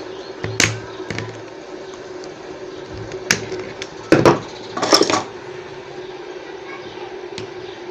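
A steady hum underneath a few knocks and clatters of a pedestal fan being handled: single knocks about half a second and three seconds in, and a louder cluster of clatter between four and five seconds in.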